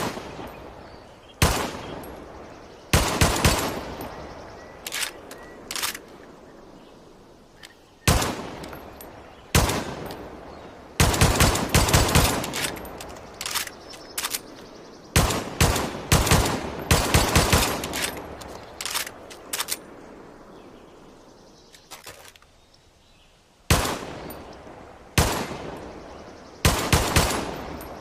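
Luger P08 pistol firing, single shots and quick strings of several shots, each sharp crack followed by a fading echo.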